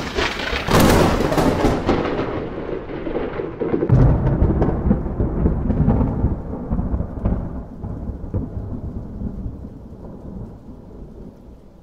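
Thunderstorm sound effect: a thunderclap with rain at the start, then a second deep roll of thunder about four seconds in, fading out slowly.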